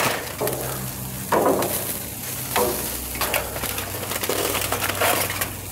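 Steady sizzle of meat cooking on a gas grill, with several short clacks and crinkles from metal tongs and aluminium foil as grilled sausages are moved into a foil tray.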